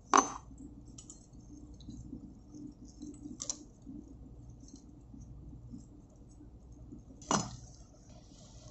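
Metal-on-metal clinks as a locking ring is fitted onto the end of a fuel oil high-pressure pipe: a sharp click right at the start, a lighter one about halfway and another sharp click near the end, with quiet handling of the steel parts in between.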